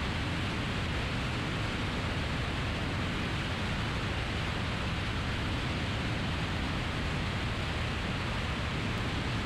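Steady, even noise of a single-engine Piper Archer in cruise flight: engine and airflow blended into a constant hiss.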